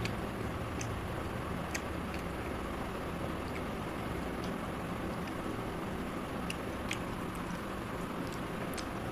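A person chewing chicken curry, with scattered faint clicks and smacks of mouth and fingers over a steady background noise.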